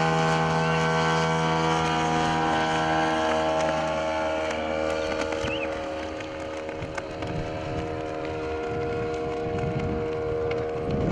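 Engine of a radio-controlled high-wing model plane towing a long banner flag, a steady drone that fades about four seconds in, leaving wind rumbling on the microphone.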